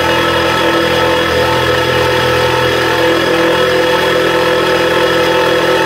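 Small benchtop milling machine running under load, its end mill cutting slots across metal track links, giving a steady motor whine with cutting noise. A small cooling fan on the mill's motor runs along with it.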